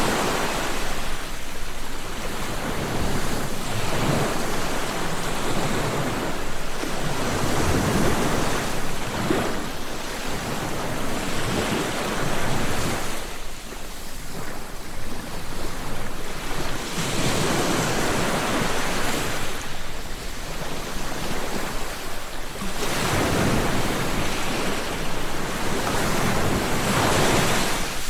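Ocean waves breaking and washing up on a shore, one surge after another every few seconds, with a lull in the middle.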